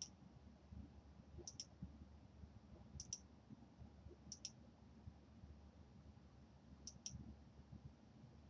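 Faint computer mouse clicks, five in all, each a quick double tick of button press and release, about a second and a half apart with a longer gap before the last. Each click plots another point of a polygon being drawn on a map.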